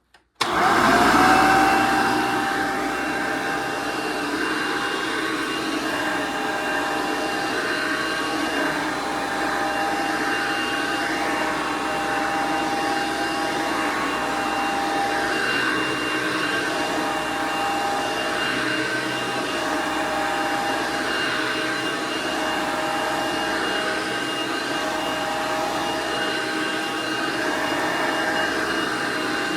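1992 Hoover Elite 2 vacuum cleaner switched on about half a second in: the motor surges up, settles within a couple of seconds and then runs steadily with a constant whine.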